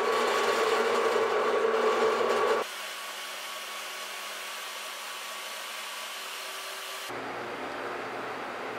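Bench drill press running with a faint steady whine while drilling pin holes through a wooden knife-style handle scale. It cuts off abruptly about two and a half seconds in, leaving a quieter steady hum.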